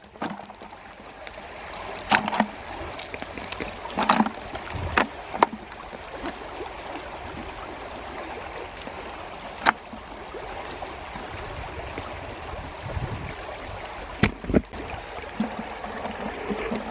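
A shallow rocky stream runs steadily over stones. Several sharp knocks and splashes come through it as fish are tipped from a hand net into a plastic bucket and handled there.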